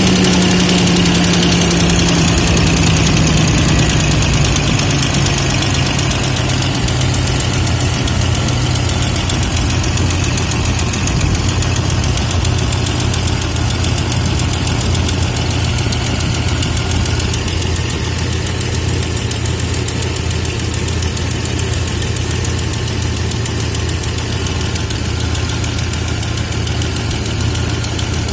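AMC 242 (4.0-litre straight-six) engine idling just after a start, its speed dropping from a fast idle to a lower steady idle within the first few seconds, with the engine knock that is the fault being recorded.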